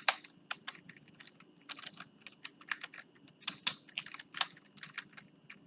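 Typing on a computer keyboard: an irregular run of keystrokes with short pauses between bursts.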